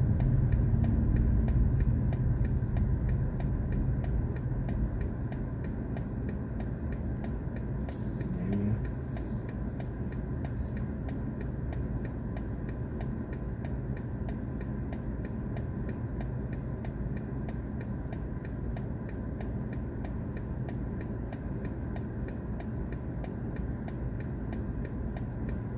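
Inside the cabin of a BMW i4 M50 electric car: low tyre and road rumble fades over the first few seconds as the car rolls to a stop. A quiet steady hum follows while it stands. Faint, regular ticking runs throughout.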